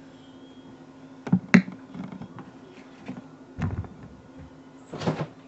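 Handling noises: a few sharp clicks and knocks, the loudest about a second and a half in, a dull thump past the middle, and a short hissing rush near the end, over a steady low hum.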